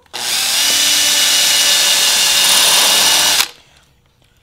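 Power drill boring a freshly sharpened spade bit into melamine-faced particleboard: a steady motor whine over the cutting noise for about three seconds, then it stops abruptly.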